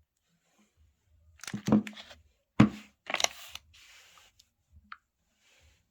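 Handling noise from a smartphone: a few sharp clicks and brief rustles, the loudest click about two and a half seconds in.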